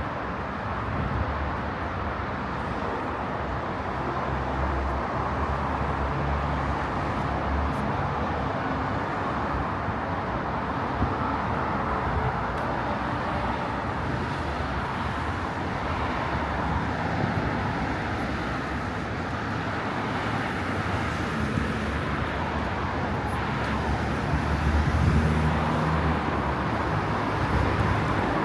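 City street traffic: cars passing with a steady rumble that swells and fades as vehicles go by.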